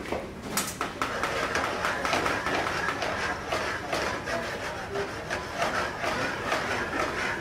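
Commercial kitchen at the stove: a steady hiss with dense crackling and small clicks, with faint voices in the background.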